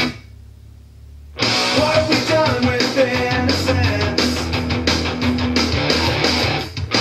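Rock music with electric guitars, singing and heavy bass played from a phone through the Versus Sound-Deck 2.1 soundbar at full volume, with its bass boost switched on. Near the start the music drops to a low hum for about a second, then comes back in loud.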